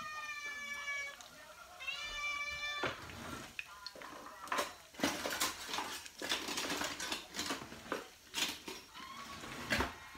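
A cat meows twice, a longer falling meow and then a shorter one. From about three seconds in, crab cakes crackle and spit as they fry in hot grease in a pan.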